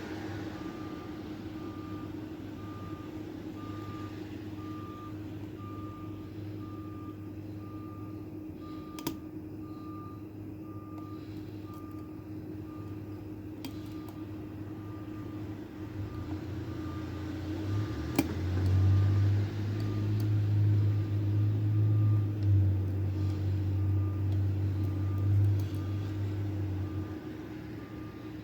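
A vehicle's reversing alarm beeps steadily, about one and a half beeps a second, over a low hum. About two-thirds of the way in a heavier low engine rumble comes up and holds for several seconds, and a few sharp clicks stand out.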